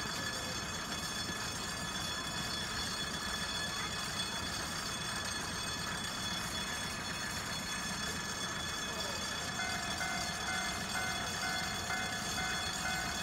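Diesel railcar KiHa 702 (ex-JNR KiHa 07) idling at a standstill: a steady low engine rumble with a thin steady whine over it. About ten seconds in, a fast beeping of about three beeps a second starts and keeps going.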